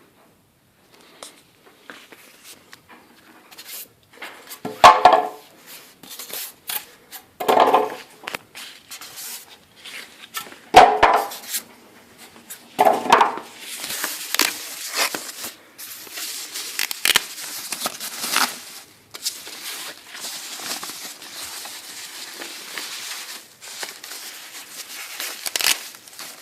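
Packaging being handled during unpacking: four short loud scraping rubs a few seconds apart, then a longer stretch of crackling, rustling packing material.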